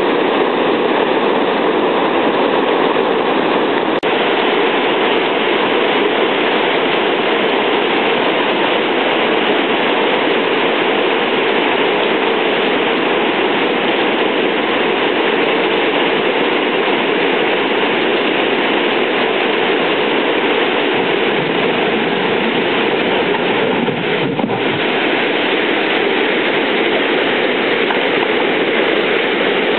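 Water pouring over a low river weir, a steady loud rush of white water.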